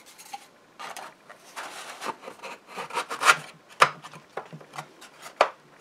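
Thin fibreboard panels being pushed down into tight slots of a flat-pack storage tower: wood scraping and rubbing in short strokes, with a few sharp clicks and knocks as the panels seat, mostly in the second half.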